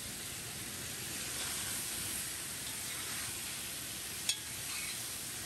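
Doves and sausage sizzling steadily as they brown in a black pot, with one sharp click about four seconds in.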